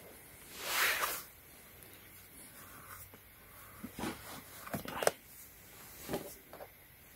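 Hands handling a closed aluminium MacBook Pro and opening its lid. There is a soft swish about a second in, then a few light clicks and taps, the sharpest about five seconds in.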